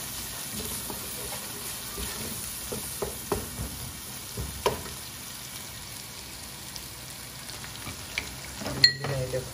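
Sliced onions and garlic sizzling in oil in a metal pan while a wooden spoon stirs them, with a few clicks of the spoon against the pan; the sharpest knock comes near the end.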